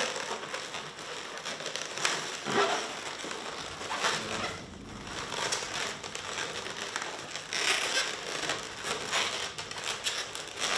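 Inflated latex modelling balloons rubbing against each other and against a round balloon as they are twisted and wrapped together by hand. It is an irregular run of scraping and rubbing.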